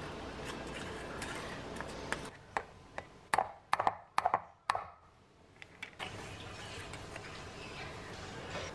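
Sharp light clicks and taps of a plastic measuring cup and spoon against a glass mixing bowl while peanut butter and coconut oil are scooped in, about half a dozen between two and five seconds in, over steady room noise.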